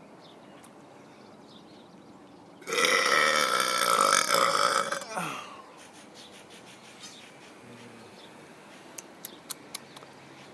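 A man's long, deliberate burp, lasting about two and a half seconds, starting about a quarter of the way in. A few short sharp clicks follow near the end.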